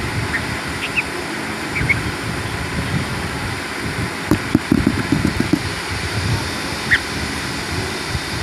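A few brief, high bird chirps over a steady low rumble, with a short run of low knocks about halfway through.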